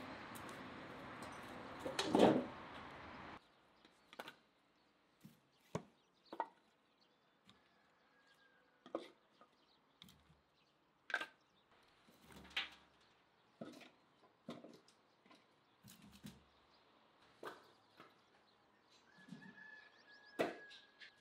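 Split firewood logs being lifted from a woodpile and set into a steel wheelbarrow: a string of separate wooden knocks and clunks, roughly one a second. It opens with steady outdoor noise and one loud clunk about two seconds in, before the knocks begin.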